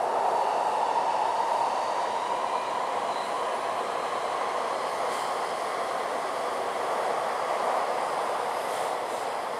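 Taipei Metro C381 train car running between stations, heard from inside the passenger cabin: a steady rumble of wheels on rail and running gear, with a faint high whine above it.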